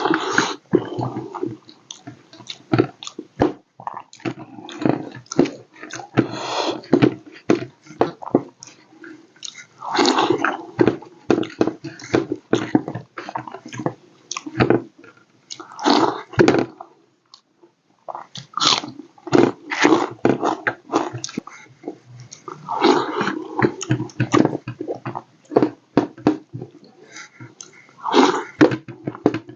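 Close-miked eating of rice with egg curry: chewing, lip smacking and wet mouth clicks in irregular bursts, with a brief pause about 17 seconds in.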